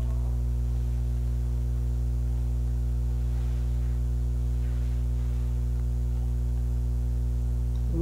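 Steady electrical mains hum, a low buzz with a stack of evenly spaced overtones and no change in level.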